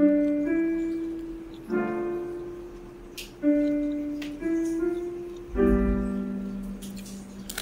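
Background piano music: a slow melody of single notes and chords struck about once a second, each ringing and fading. A few faint clicks sound under it.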